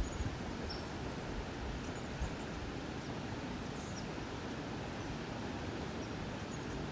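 Steady rushing of a flowing river, with a few brief, faint high chirps scattered over it.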